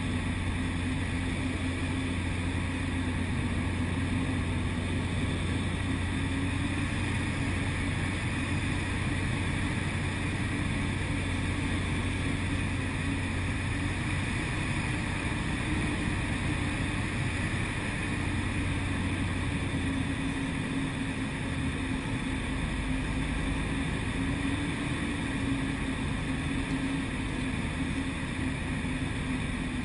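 Ultralight aircraft engine and propeller running with a steady drone on short final approach. About twenty seconds in, the low part of the drone drops lower.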